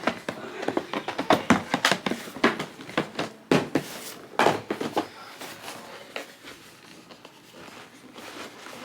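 Handling noises from sneakers and their packaging being turned over: a quick run of clicks, taps and rustles that thins out about five seconds in.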